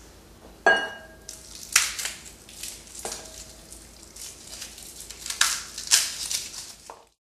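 Dry, papery garlic skin crackling and rustling in irregular snaps as a clove is broken off a garlic head and peeled by hand. A sharp click with a short ring about a second in is the loudest sound.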